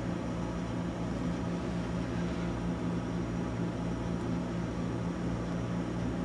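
Steady low mechanical hum with an even hiss behind it, unchanging throughout.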